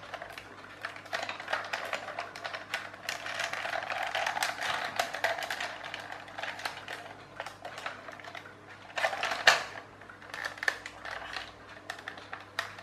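Plastic clockwork toy tractor being handled and turned over in the hands, giving a dense run of small clicks and rattles. A louder knock comes about nine and a half seconds in.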